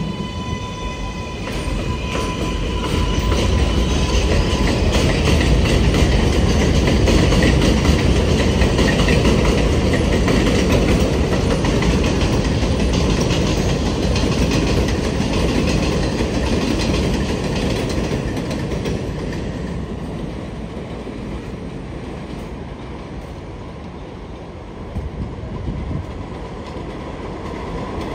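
R188 subway train running on an elevated steel structure, its wheels rumbling and clattering over the rails, with a steady high electric motor whine in the first few seconds. The rumble swells, then fades as the train moves away, and rises again near the end as another train comes in.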